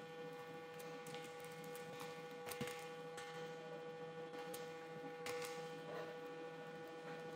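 Sparse, irregular computer keyboard keystrokes over a steady electrical hum.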